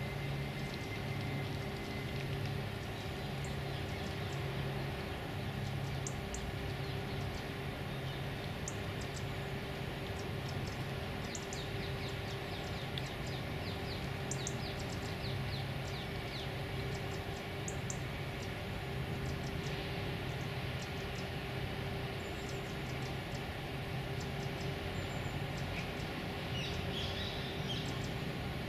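Steady low hum of distant city traffic, with small birds giving thin, high chirps in short runs, mostly through the middle and again near the end.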